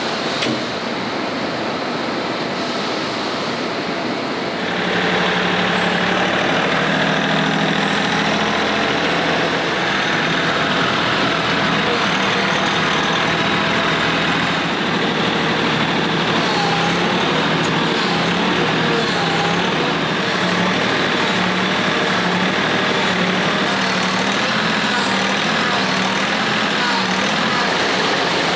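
Kioti CK4020 HST tractor's diesel engine running, with its wheels on a roller test stand, over steady factory machinery noise. The engine sound gets louder about five seconds in, then holds steady with a low hum.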